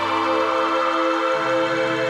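Ambient new-age background music: slow sustained synthesizer pad chords, with a shift to a new chord about one and a half seconds in.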